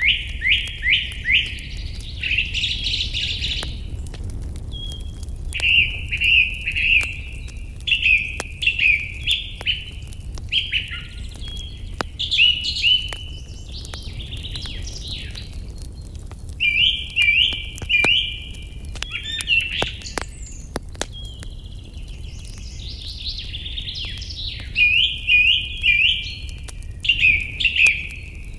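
Songbirds singing in short, quick phrases of repeated notes, one phrase every second or two, over a wood fire crackling with scattered sharp pops and a steady low rumble.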